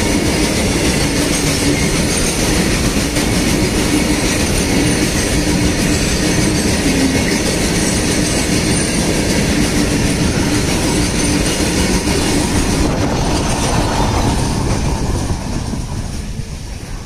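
Freight train of open-top wagons rolling past close by, steel wheels rumbling and clattering over the rail joints. The sound fades over the last two seconds as the end of the train goes by.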